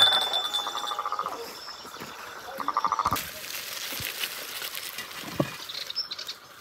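Frogs croaking in short trains of rapid pulses, twice in the first three seconds, with a clunk right at the start as a ceramic baking dish is set down on the table. After about three seconds the croaking stops and a steady hiss with a few scattered clicks takes over.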